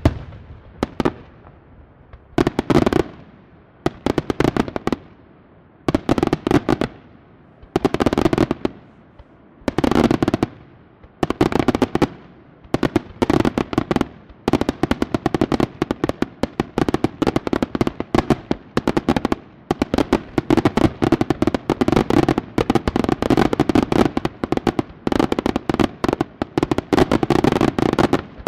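Aerial firework shells bursting in volleys, a cluster of sharp bangs about every two seconds. From about halfway the bursts run together into a dense, unbroken barrage of rapid bangs and crackle.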